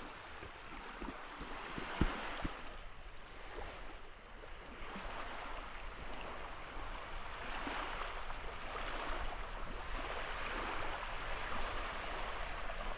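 Steady rush of flowing river water, with a single sharp knock about two seconds in.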